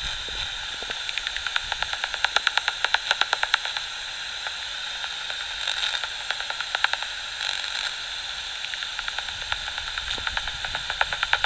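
Bat detector hissing like radio static, broken by rapid trains of clicks, about ten a second, in bursts around two seconds in, again six to seven seconds in, and near the end: the echolocation calls of bats flying past.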